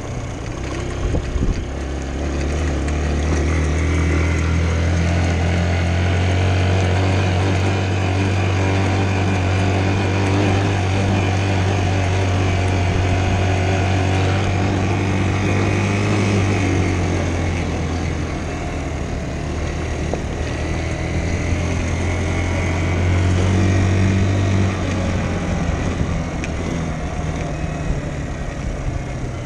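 Dirt bike engine running as the bike is ridden along a dirt track. Its note swells and eases several times with the throttle.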